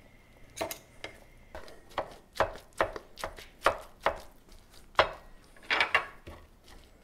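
Knife chopping cooked chicken on a wooden cutting board: a run of irregular sharp chops, about two a second, starting just under a second in.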